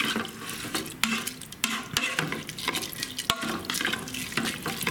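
Black plastic spoon stirring rice, chorizo and peppers in chicken stock in an electric pressure cooker's inner pot, with irregular scrapes and a few sharp knocks against the pot. Under it a low sizzle from the hot pot, quieted by the added stock.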